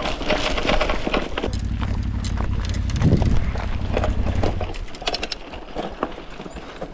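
Bicycle rattling and clicking over a rough track, with wind rumble on the microphone that dies away about two-thirds of the way through.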